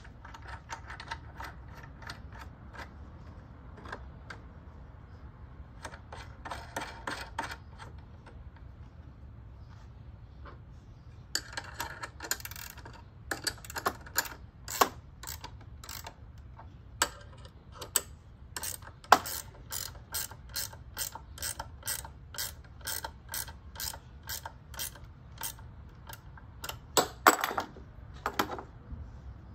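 Fitting and tightening the nuts and bolts on a steel gas-pipe leg axle: irregular sharp metallic clicks and clinks, sparse at first and coming in quicker, louder runs from about eleven seconds in.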